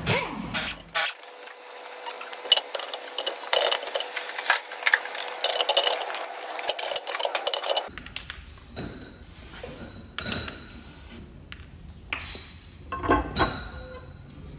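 Steel engine parts clinking and clicking as they are handled during engine block assembly. The clinks come thick and fast at first. After a cut about eight seconds in they become sparser clicks and a few knocks as a gear is fitted to the front of the block.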